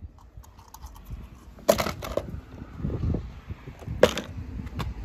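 Two sharp clacks about two seconds apart over faint rustling, as small toys are handled against hard plastic.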